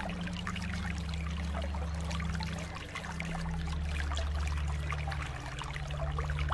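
Pool water trickling and splashing lightly, with a steady low hum underneath.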